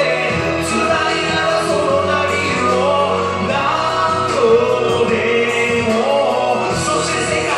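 Karaoke backing track of a Japanese hip-hop/pop song playing loudly over the room's speakers, with a man singing along to it.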